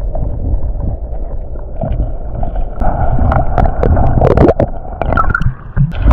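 Water sloshing and gurgling as heard by a camera submerged in shallow sea, muffled, with a steady low rumble and scattered clicks and knocks.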